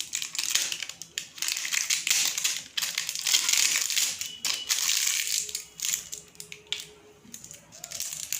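Plastic packaging crinkling and rustling in irregular bursts as it is handled and opened, growing quieter after about five seconds.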